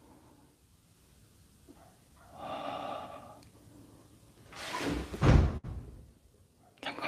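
A door creaking open on its hinges for about a second, then a loud dull thump a couple of seconds later, with a shorter knock at the very end.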